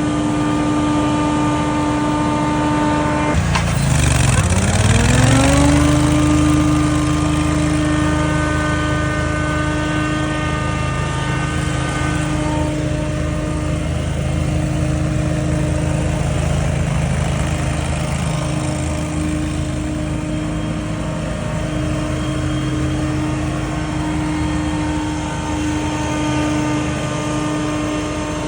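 Scag Windstorm stand-on leaf blower running at full speed with a steady high whine. About three and a half seconds in, its pitch drops sharply and climbs back to full speed over about two seconds.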